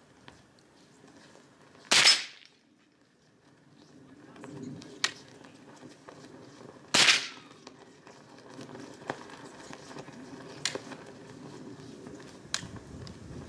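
Two single shots from a .22 LR AR-22 rifle with a 16-inch barrel, about 2 and 7 seconds in, each a sharp crack with a short ringing tail. Fainter sharp clicks come between and after them.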